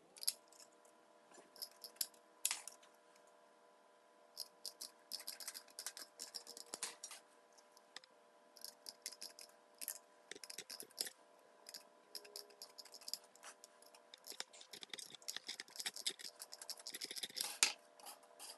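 Scissors cutting through a perforated metal mesh sheet: runs of short, crisp snips and clicks in quick clusters, with brief pauses between.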